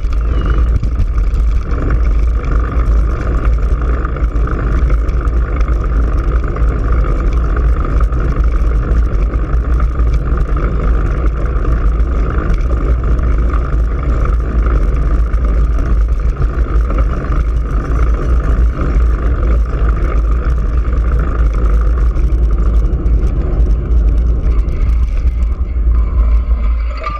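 Steady low wind rumble buffeting the microphone of a GoPro Hero3 riding on a child's bicycle at race pace.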